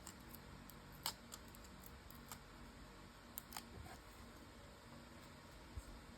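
A few faint, scattered clicks and light taps from card pieces being handled and pressed down on a craft desk, over quiet room tone.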